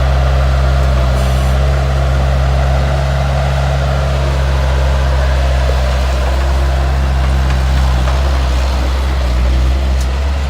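Bobcat S130 skid steer's diesel engine running steadily at an even speed.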